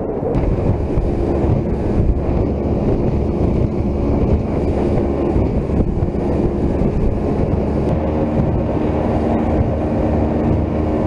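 Mercury outboard motor pushing an aluminum boat along at speed, a steady engine note under heavy wind buffeting on the microphone and water rushing along the hull.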